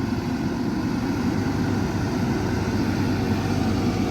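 Farm tractor engine running steadily, a low, even drone.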